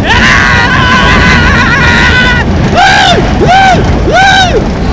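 Riders screaming on a thrill ride: one long held scream, then four short rising-and-falling yells, over a low rumble of rushing wind on the microphone.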